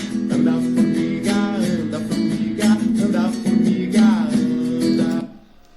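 Acoustic guitar strummed in a steady rhythm with a woman singing a children's song, the music stopping abruptly about five seconds in.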